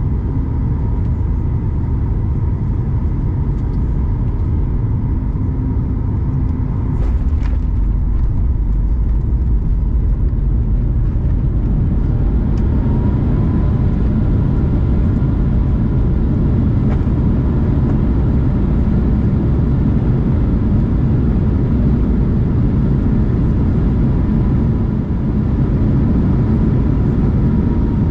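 Inside the cabin of a Boeing 737 MAX 8 during touchdown and landing roll: a steady heavy roar and rumble with a thin engine tone above it. About seven seconds in, a short knock marks the wheels touching down, and from then on the rumble runs louder as the jet rolls down the runway.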